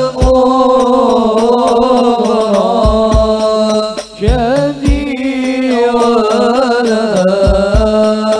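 Sholawat singing, a sustained melismatic vocal line, over a hadrah ensemble of rebana frame drums, with deep drum strokes falling every few seconds, some in close pairs.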